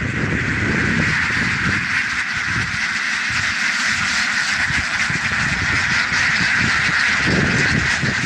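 A large flock of Indian Runner ducks quacking together in a dense, continuous chorus.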